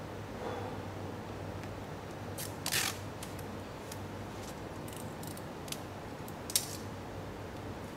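Handling noises of rubbing tools and materials: a brief rasp about three seconds in, a few light clicks, and a sharp click near the end, over a steady low hum.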